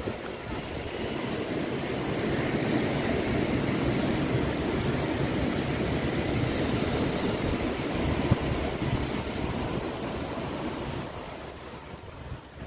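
Ocean surf washing onto the shore: a rush of water that swells over the first couple of seconds, holds, then fades away near the end.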